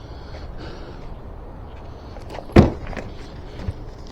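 A single sharp knock, like a hard object set down or bumped, about two and a half seconds in, over a low steady background rumble.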